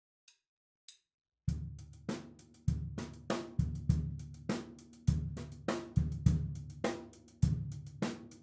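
Drum kit playing a steady beat: heavy low drum strokes come about every half-second to second, with cymbal and hi-hat hits between them. The beat starts about a second and a half in, after two faint clicks.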